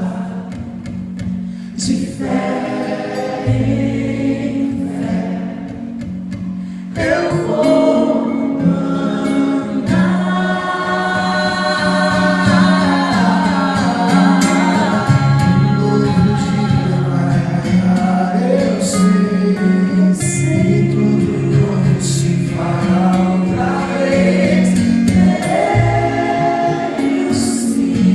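Music: a choir singing sustained chords over steady low notes, quieter and thinner at first, then swelling to a fuller sound about seven seconds in.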